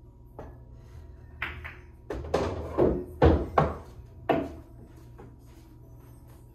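A pool shot: a light cue-tip tap on the cue ball, a sharp clack of ball striking ball about a second and a half in, then a run of loud knocks and thuds over the next two seconds as an object ball drops into a pocket.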